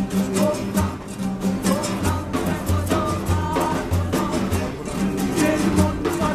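Acoustic guitars strummed over a large hand-held frame drum beating a steady rhythm, with a man singing.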